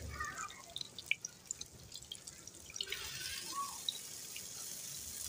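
Beef-liver kabab patties shallow-frying in oil in a nonstick pan: a soft sizzle with scattered small crackles and pops, the sizzle thickening about three seconds in.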